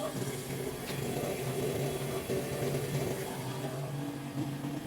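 Monoblock electric water pump motor running steadily with a low hum.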